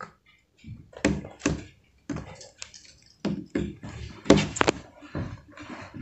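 A plastic 3x3 Rubik's cube clicking and clacking as it is turned and handled in the hands: about a dozen irregular sharp clicks and knocks.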